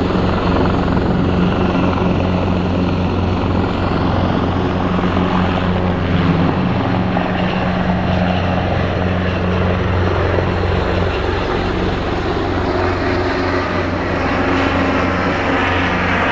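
Large turbine helicopter lifting off and climbing overhead: a steady rotor thrum with engine noise that holds an even loudness throughout.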